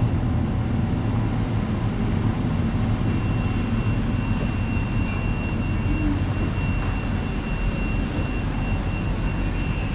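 Steady low rumble of city road traffic, joined about three seconds in by a thin, steady high whine.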